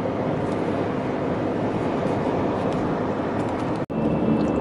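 Steady road and engine noise heard inside a moving car. It cuts out abruptly for a moment near the end, then returns with faint car-radio music under it.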